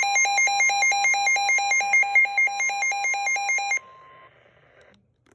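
Emergency Alert System attention tone: a loud electronic alarm flipping rapidly back and forth between two pitches, several times a second, over a steady high tone. It cuts off suddenly about four seconds in, leaving a faint hum.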